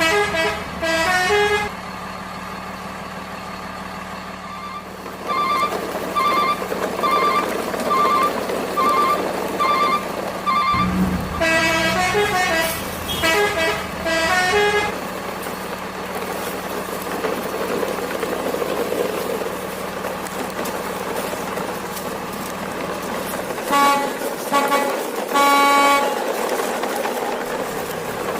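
Electronic toy truck sound effects: siren-like tones gliding up and down twice, a run of about eight evenly spaced beeps, and short horn toots near the end.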